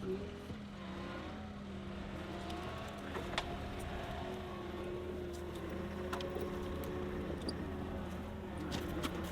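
An engine running steadily at a constant speed, with a few light clicks over it.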